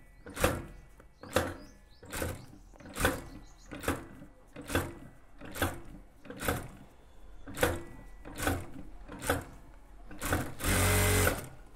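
Industrial sewing machine stitching in short bursts, about one a second, as each pleat is folded in and tacked down. Near the end it makes one longer, louder run.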